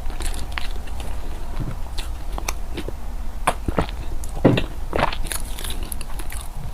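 Close-miked sounds of a person eating: irregular bites and chewing with sharp clicks and smacks. The loudest two bites come about four and a half and five seconds in.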